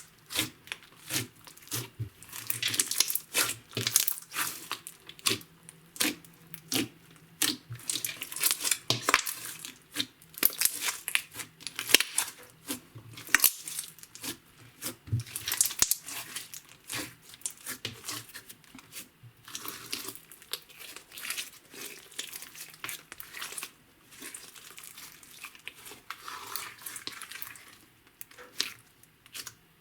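Hands squishing, stretching and folding clear slime with makeup and glitter mixed into it, giving a string of irregular sticky pops and crackles with longer wet squelching stretches in between.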